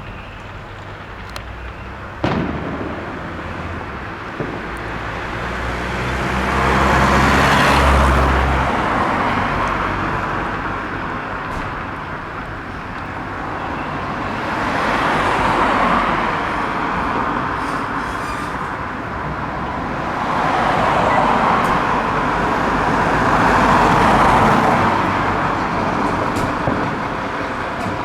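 Road traffic passing, several vehicles swelling up and fading one after another, with an engine audible on the first pass. A sharp bang about two seconds in, typical of a firework.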